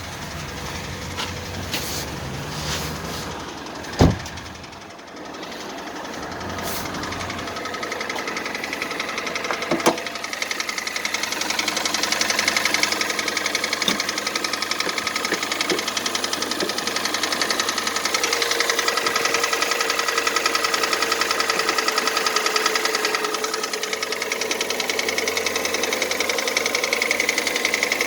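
The 2.0-litre four-cylinder petrol engine of a 2014 Kia Cerato idling cold with a fast, even knock, louder and clearer from about eight seconds in. The owner takes it for piston knock, after a diagnosis of scoring in cylinders 2 and 3. A loud thump about four seconds in and a sharp click near ten seconds.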